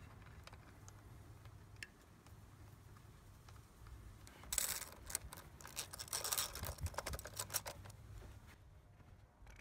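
Ratchet with a 10mm socket clicking in quick runs as it drives a bolt into a Honda Elite 250 scooter's final drive case, starting about halfway through.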